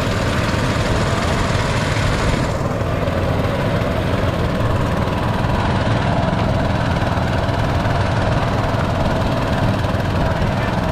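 An engine running steadily at a low, even pitch. A higher hiss over it drops away about two and a half seconds in.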